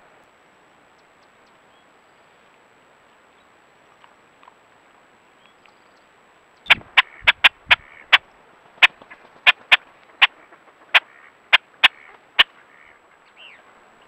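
Great-tailed grackles giving a run of sharp, loud clacks, about fourteen of them, irregularly spaced over some six seconds, starting about halfway through.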